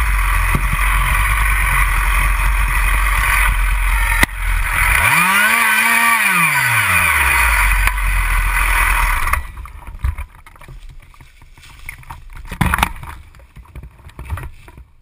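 Husqvarna 346XP two-stroke chainsaw running at high revs, its engine note rising and falling once in the middle. About nine seconds in the engine sound drops away, leaving a few clicks and knocks.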